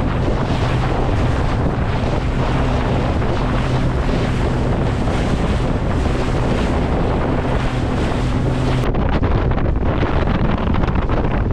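Heavy wind buffeting the microphone aboard a small boat, with water noise and the steady low drone of the boat's engine. The engine drone drops out about three-quarters of the way through, leaving the wind and water.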